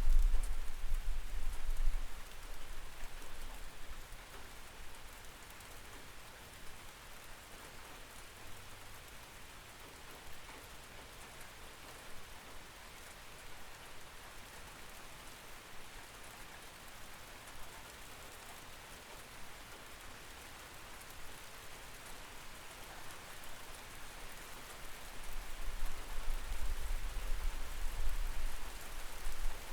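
Steady night rain heard through a window, an even hiss of falling drops. A deep low rumble is loud for the first two seconds, fades, and swells again over the last few seconds.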